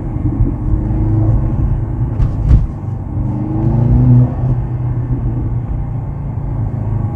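Mercedes-AMG C43's 2.0-litre four-cylinder turbo engine running as the car is driven. Its note rises briefly about three to four seconds in, then eases off. Two sharp knocks come a little after two seconds in.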